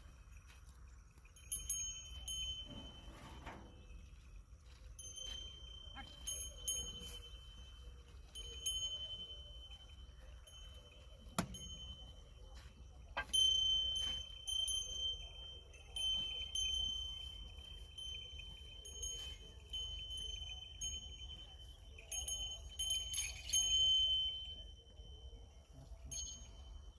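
Metal bells worn by working bulls ring as the animals pull the plough, clear ringing notes struck over and over at an uneven pace, with a few sharp clicks among them.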